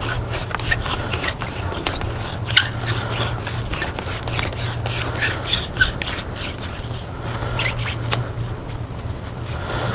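Gloved hands threading a fire hose's male and female couplings together, with many small clicks and scrapes of the metal couplings and the hose jacket rubbing. A steady low hum runs underneath.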